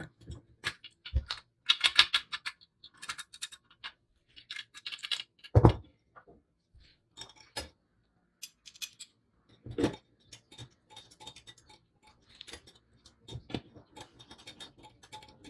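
Small metal parts of a vintage mini balance scale clicking, clinking and scraping as they are handled and fitted together, with a few louder knocks and, near the end, a screwdriver turning a screw.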